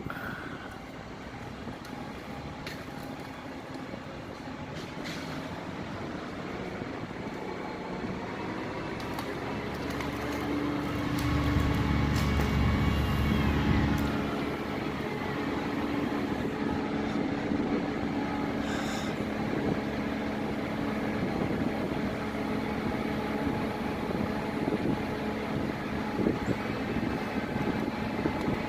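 An engine running steadily under varying load, getting louder and heavier for a few seconds about eleven seconds in, then settling back.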